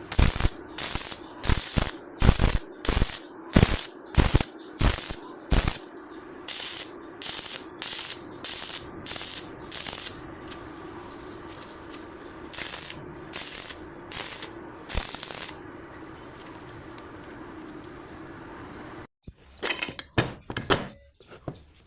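Homemade hand-crank rotary drilling machine at work: runs of sharp, regular mechanical clacks, about two a second, with pauses between runs, over a steady low hum. Near the end the sound breaks off briefly and gives way to a few scattered knocks.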